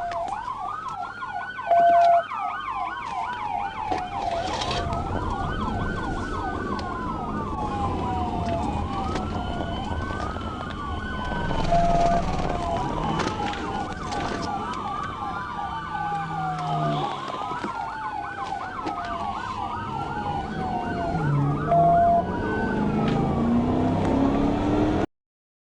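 Police car siren wailing in slow rising and falling sweeps, with a faster warble over it at first. A short, loud, steady beep sounds three times, about ten seconds apart. Near the end a low engine-like pitch rises, then the sound cuts off suddenly.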